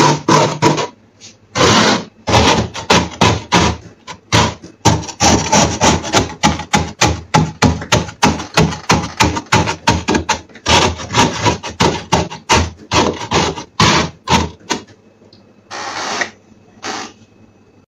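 Frost being scraped off the inside walls of a chest freezer with a wooden-handled scraper: quick repeated rasping strokes, about three a second, with only a couple of strokes near the end.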